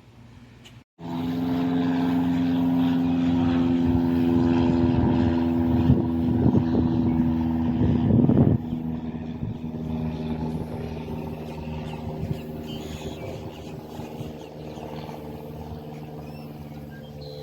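A steady, droning engine hum starts about a second in. Irregular knocking sounds over it midway, and the hum fades after about eight seconds.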